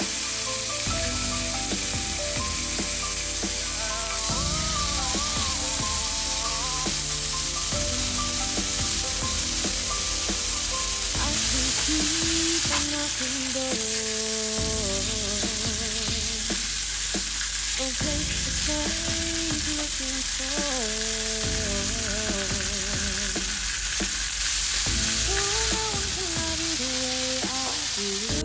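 Chicken breasts sizzling steadily as they fry in oil in a frying pan, with background music over the sizzle.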